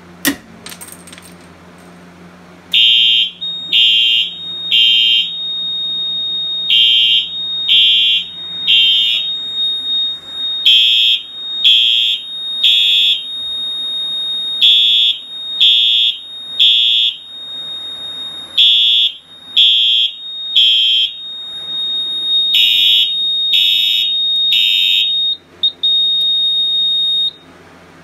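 An Edwards 270-SPO pull station is pulled with a clack, breaking its glass break rod. A few seconds later a Wheelock EH electronic horn sounds the panel's code-3 temporal pattern: groups of three short loud blasts about a second apart with a pause between groups, six groups in all, over a steady high tone, and then it cuts off near the end.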